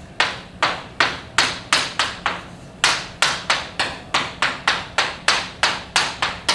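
Chalk tapping and scraping against a blackboard as numbers and brackets are written: a quick, uneven run of sharp knocks, about three a second.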